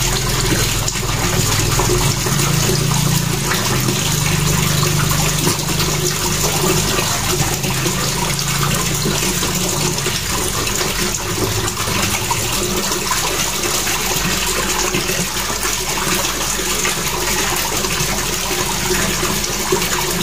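Steady rushing of running water, with the scraping of a bait block rubbed on a hand-held metal grater over a steel bowl.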